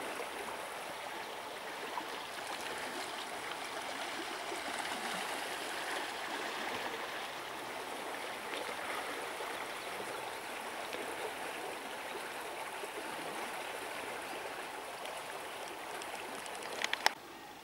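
A small, shallow river flowing over stones: a steady rush and babble of running water. A few sharp clicks come near the end.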